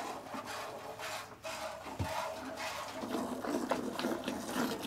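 A cow being milked by hand: short squirts of milk, a few a second, with the hands working the teats. The squirts come more often in the second half.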